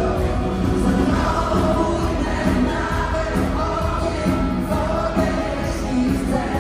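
Live pop-rock band playing with voices singing over it.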